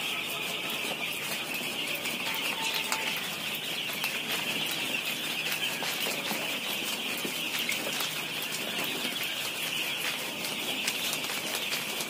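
Used poultry husk litter being shaken in a hand-held mesh net sieve: a continuous rustling of husks with many fine ticks as particles sift through the mesh onto the pile. A steady high-pitched hiss runs underneath.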